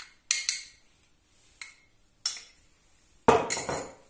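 Metal spoon and glass bowls clinking as icing sugar is knocked out of a small glass bowl into a glass bowl of sour cream: a few sharp taps, then a louder clatter about three seconds in.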